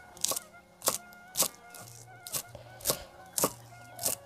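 Knife slicing celery leaves on a cutting board: sharp cuts at about two a second, with a short pause in the middle, over a faint steady hum.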